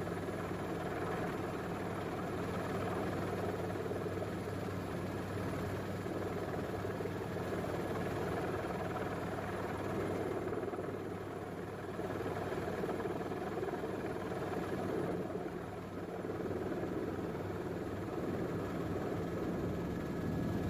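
A steady engine drone with a low hum, even throughout.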